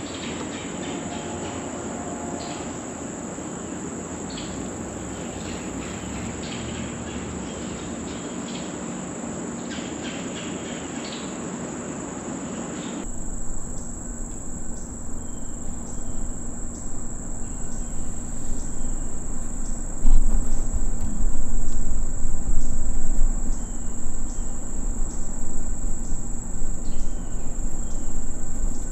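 Steady high-pitched chorus of insects in late-summer woods, with scattered light clicks in the first half. In the second half a low rumble comes up, loudest about two-thirds of the way through.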